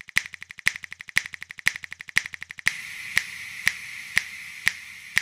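Snapping beat of a background music track: a sharp finger-snap click twice a second, with quicker, softer ticks between. About two and a half seconds in, a steady hiss joins the beat.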